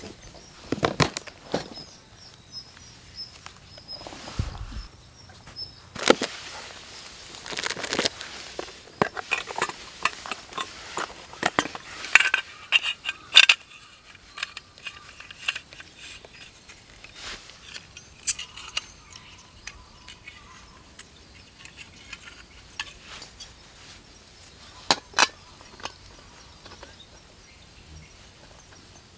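Camping gear being unpacked from a leather case: irregular clicks, knocks and metallic clinks as the case is opened and a metal tin and a gas canister with its screw-on burner are handled.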